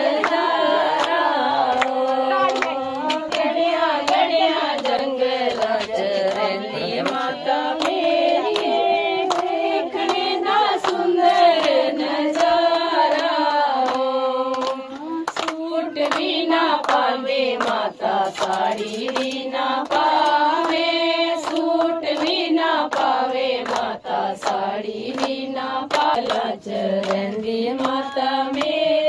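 Voices singing a Punjabi devotional bhajan to the Mother Goddess (Mata Rani) in a kirtan, with hand-clapping keeping the beat.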